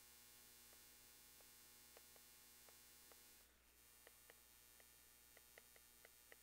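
Near silence: a faint steady electrical hum, with faint light ticks from a stylus tapping a tablet screen as an equation is handwritten, coming more often in the last two seconds.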